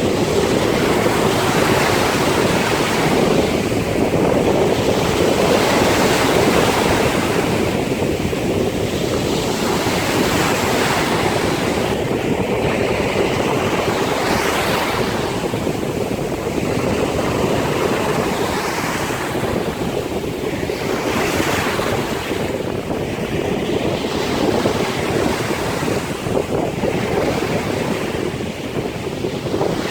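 Wind blowing hard across the microphone over rushing surf, the noise swelling and easing every few seconds.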